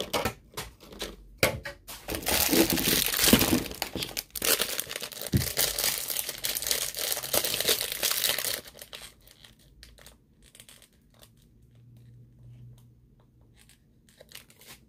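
Small plastic toy wrapper crinkling and tearing as it is pulled open by hand, loud and continuous for about six seconds. This is followed by fainter handling clicks as the small piece inside is taken out.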